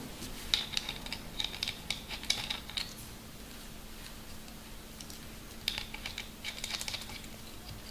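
Quick runs of small sharp clicks and ticks as quarter-inch push-to-connect fittings are threaded onto a pneumatic valve by hand. There are two bursts: one in the first three seconds and another late on.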